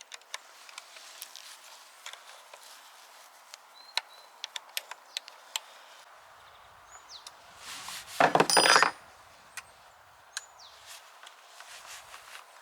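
Small metal clicks and taps of bike parts and hand tools being handled during a bike build, with a louder burst of handling noise lasting under a second about eight seconds in.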